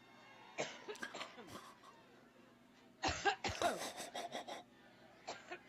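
A woman coughing in a prolonged coughing fit: short coughs in clusters, with the longest and loudest run about three seconds in.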